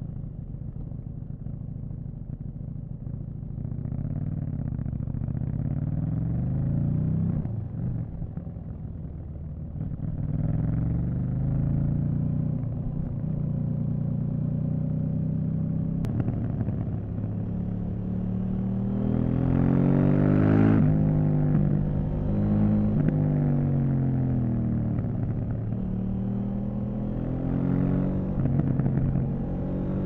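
KTM 790 Duke's parallel-twin engine under way, its pitch climbing as the bike accelerates and dropping at each gear change, with several quick rising and falling sweeps in the second half. A brief click about halfway through.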